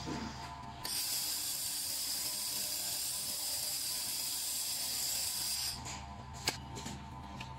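1.5 kW fiber laser welder welding a round metal tube turning in a rotary chuck: a steady high hiss starts about a second in and cuts off suddenly a little over a second before the end, over a constant machine hum. A few sharp clicks follow once it stops.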